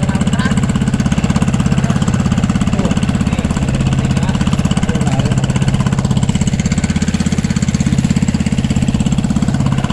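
Small air-cooled engine of an outrigger fishing boat running steadily under way, a fast, even putter of firing pulses.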